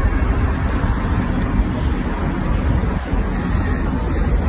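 Steady low rumble of road traffic noise.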